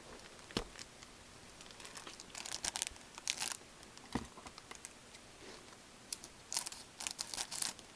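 Foil trading-card pack wrapper being torn open and crinkled, in two bouts of crackling, one a couple of seconds in and one near the end, with a few light taps between.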